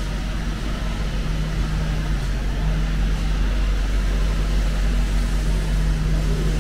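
City street ambience: steady traffic noise over a constant deep rumble, with a steady low hum that dips slightly in pitch a little over two seconds in.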